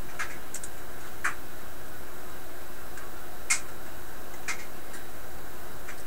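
A handful of short, scattered clicks and taps from the camera being handled to set its zoom, the loudest about three and a half seconds in, over a steady faint hum.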